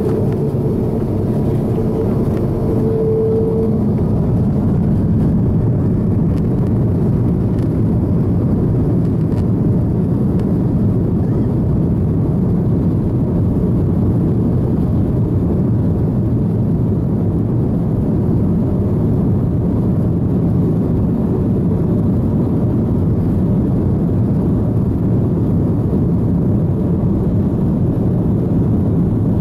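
Airbus A330-200 jet engines heard from inside the cabin over the wing, running at takeoff power as a loud, steady rumble while the aircraft rolls down the runway. A short steady tone sounds about two to three seconds in.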